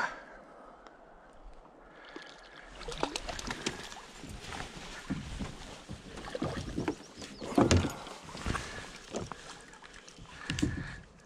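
Irregular sloshing of water with sudden knocks, starting about two and a half seconds in and loudest about two-thirds of the way through.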